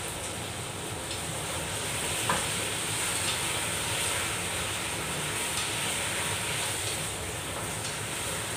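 Chicken pieces sizzling in soy sauce in a pot while a wooden spatula stirs them, with a single light knock about two seconds in.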